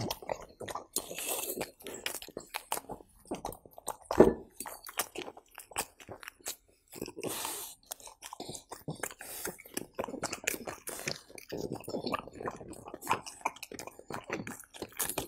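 French bulldog chewing and smacking its lips on soft pumpkin and cheese taken from a hand, a run of short wet smacks and clicks with one louder knock about four seconds in.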